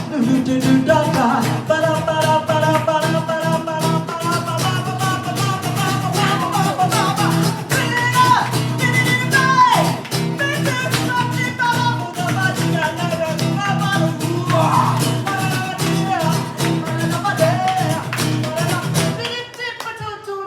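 A song played live on guitar with a melodic singing line over it. The music stops about a second before the end.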